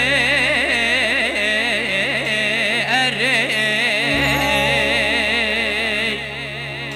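Live Kurdish folk singing: a male voice through a microphone holding long, wavering melismatic lines without clear words over a steady low drone, easing off about six seconds in.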